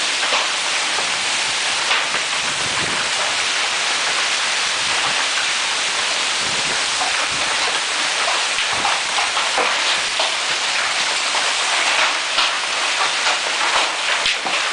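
Hail and heavy rain pelting down in a dense, steady hiss, with many scattered sharper hailstone impacts.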